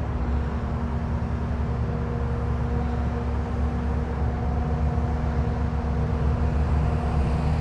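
Caterpillar skid steer's engine running steadily, a constant low rumble with an even hum at a fixed pitch.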